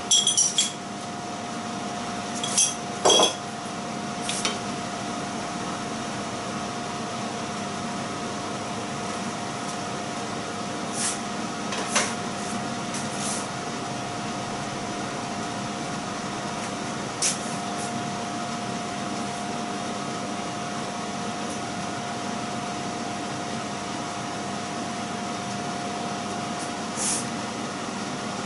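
A plate and utensils being handled: a few scattered clinks and knocks, the loudest about three seconds in and again about twelve seconds in, over a steady hum with one faint held tone.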